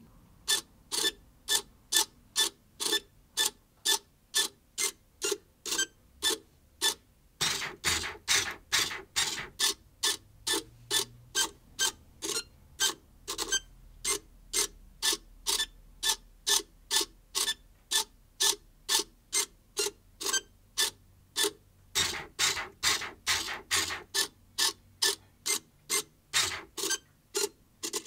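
Ex-Mars robotic smart cube turning its own faces with its internal motors. Each turn is a short whirring click, one after another at about two a second, with a few brief pauses.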